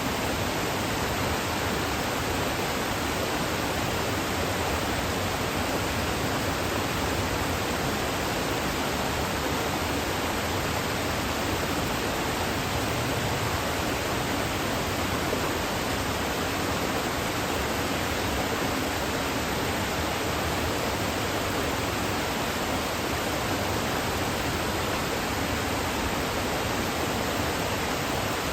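Kuzuryu Falls, a waterfall, pouring steadily: an even, unbroken rush of falling water.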